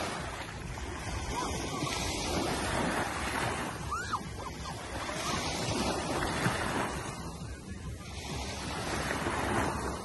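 Small waves breaking and washing up on a sandy shore, the surf swelling and fading about three times. Wind noise on the microphone runs underneath.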